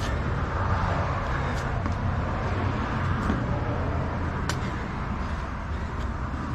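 Steady low rumble of outdoor background noise, with a few soft thuds of hands and feet landing on the asphalt driveway during burpees.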